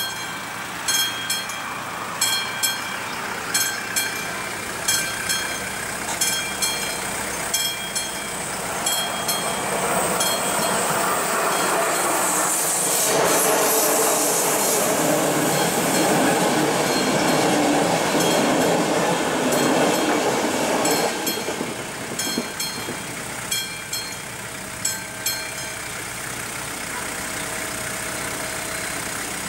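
Level-crossing warning bell ringing steadily, about one and a half strokes a second. From about ten seconds in, a passenger train hauled by an electric locomotive passes with a rising rush of wheel and rail noise that covers the bell until about twenty-one seconds. The bell then rings on alone and stops shortly before the barriers lift.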